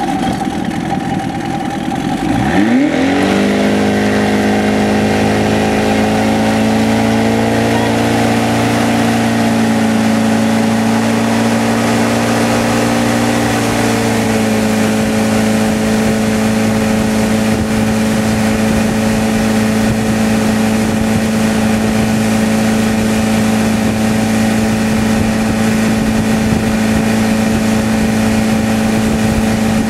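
Motorboat engine opening up hard about two seconds in, its pitch climbing quickly as the boat pulls a wakeboarder up out of the water. The engine then runs steadily at speed, easing slightly lower in pitch about halfway through, over wind and water rush.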